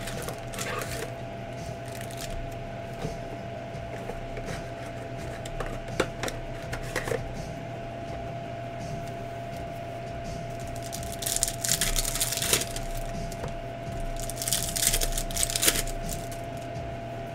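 Shiny trading-card pack wrappers of Panini Donruss Elite basketball packs crinkling in two bursts, about eleven and fourteen seconds in, as a pack is handled and torn open. Earlier there are a few light clicks of packs being set down, over a faint steady hum.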